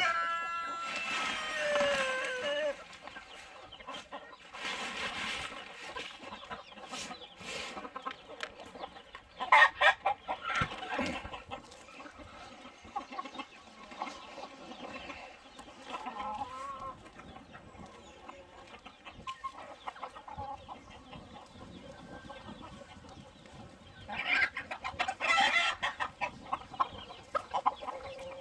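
A flock of cheonggye chickens (Araucana-type green-egg layers) clucking while they feed. A long call falls in pitch and dies away about two seconds in, and louder bouts of clucking come about ten seconds in and again near the end.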